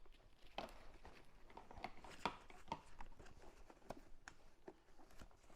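Near silence broken by faint, scattered light clicks and taps, like small objects being handled.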